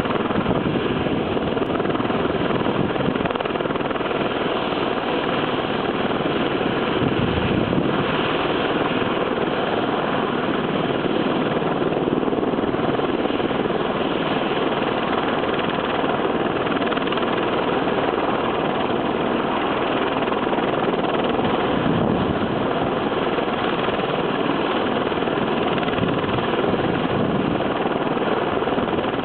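Helicopter starting up on the ground, its turbine engine running with the main rotor turning: a steady rushing noise with a faint whine held at an even level.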